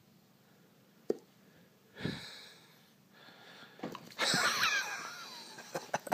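A golden retriever being flicked on the nose. A single sharp tap comes about a second in, then a short breathy puff from the dog. About four seconds in there is a louder rustling scuffle as the dog lunges at the phone, with breathy sounds mixed in.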